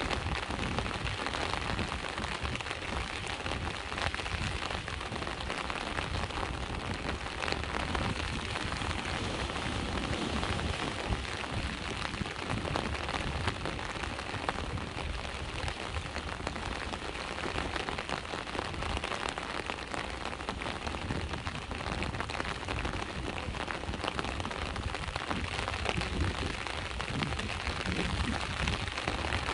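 Steady rain falling with sea waves, an even hiss of rain full of fine drop ticks over a low rumble.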